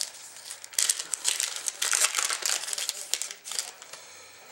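Wrapper of a hockey trading-card pack being torn open and crinkled by hand. It is a rapid run of sharp crackles that starts about a second in and dies away just before the end.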